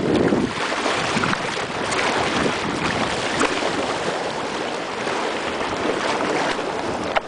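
Sea water rushing and splashing around a kayak moving through ocean swell, with wind buffeting the microphone.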